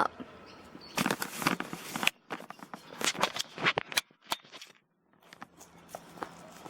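Irregular rustling and sharp clicks of something being handled close to the microphone, broken twice by a brief dead silence.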